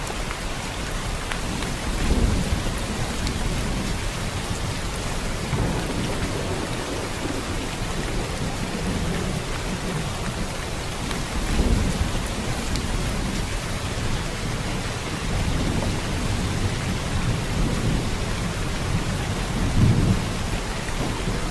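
Steady rain falling, with low rumbles of thunder that swell up about two seconds in, in the middle, and near the end.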